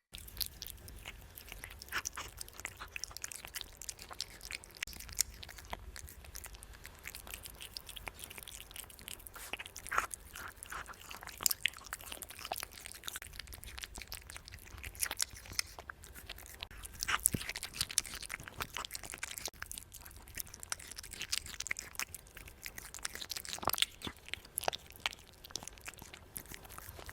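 A cat chewing and crunching food: a long run of small, irregular crunches and clicks.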